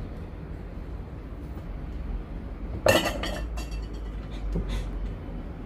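Kitchen clatter: one sharp clink of kitchenware set down a little under three seconds in, ringing briefly, then a few lighter knocks.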